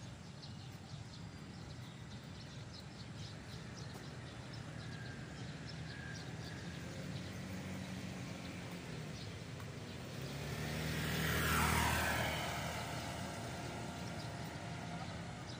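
A vehicle passes by, swelling to its loudest about eleven and a half seconds in, dropping in pitch as it goes by, then fading away.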